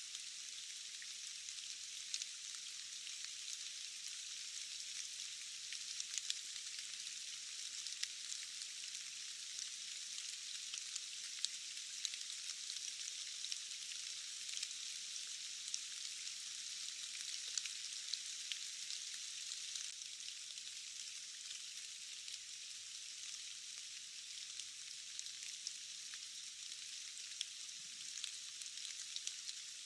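Steady rain falling in a dense, even hiss with many small sharp drop ticks scattered through it. The sound is thin, with no low rumble.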